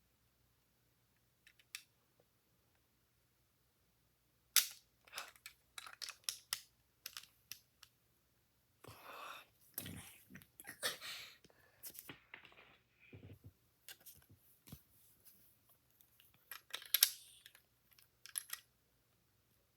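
Plastic Lego bricks being handled and snapped together: scattered sharp clicks and small knocks, with a stretch of rustling and rattling in the middle and one louder click near the end.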